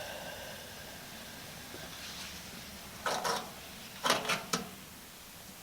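Two short bursts of clattering knocks about a second apart, typical of metal parts of an old hay baler being handled or moved, over a faint background hiss.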